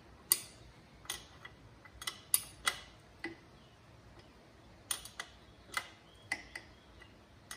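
Sharp metal clicks of a small wrench working a dirt bike's rear chain adjuster bolt, turn by turn, to take up chain slack. About a dozen clicks at uneven spacing, in two groups with a short pause between.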